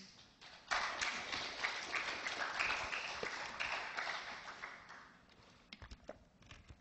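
Audience applauding. The clapping starts sharply about a second in, holds for about four seconds, then dies away into a few last claps.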